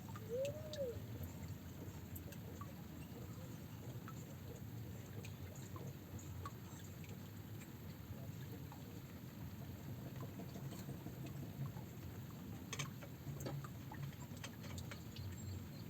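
Quiet outdoor background noise: a steady low rumble with scattered small clicks, and one short rising-then-falling tone about half a second in.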